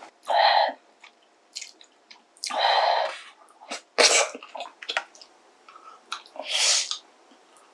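Slurping of noodles or broth from kimchi stew, four loud wet slurps a second or two apart, with faint chewing clicks between them.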